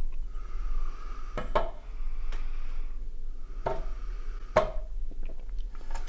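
Several sharp knocks and clunks of a stemmed beer glass and a hand on a small wooden side table, with soft breathing from the drinker between them.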